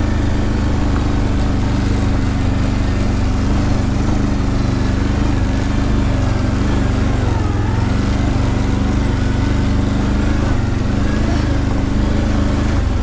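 ATV engine running steadily while the quad is ridden along a trail.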